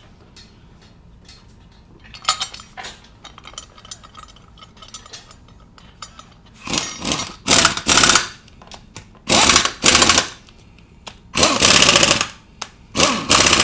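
Pneumatic impact wrench hammering in about six short bursts in the second half, driving bolts on the engine, with lighter tool clatter earlier.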